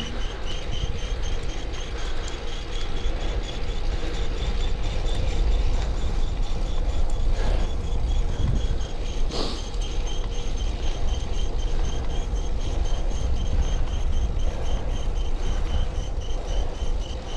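A bike's drive chain, tightened with all its slack taken out, running with a rhythmic metallic whirring and grinding over a steady low rumble. The noise comes from the chain being adjusted too tight.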